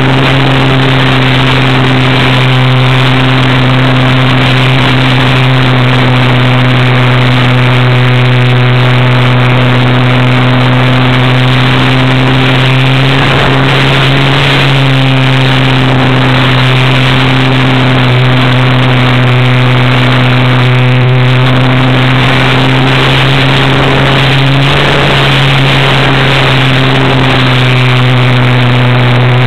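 HobbyZone Cub RC plane's electric motor and propeller, heard from the on-board camera, running as a loud, steady drone in flight; its pitch shifts slightly about halfway through and again near the end.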